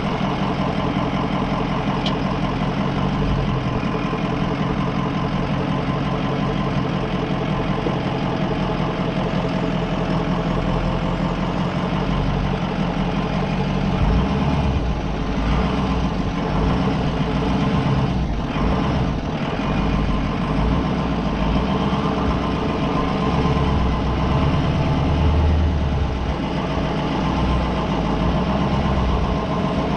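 Ford E350 Sportsmobile van's engine running steadily near idle while the van crawls down a steep off-road descent, with a low rumble that swells a few times.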